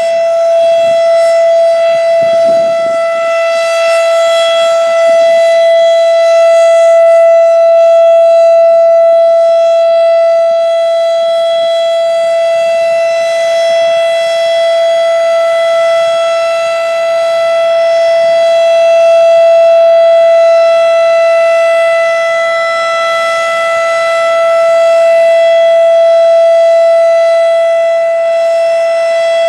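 Federal Signal RSH-10A Thunderbeam tornado siren sounding its Alert signal: one steady, very loud tone that holds its pitch. The sound swells and fades slowly as the slanted reflector disc turns inside the mesh cylinder.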